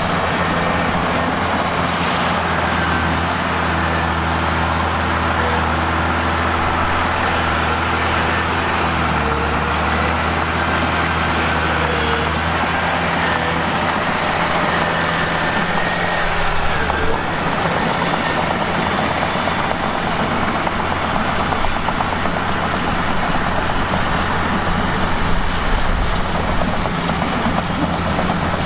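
Mitsubishi bulldozer's diesel engine running steadily while working. The engine note dips about a third of the way in and changes again a little past halfway.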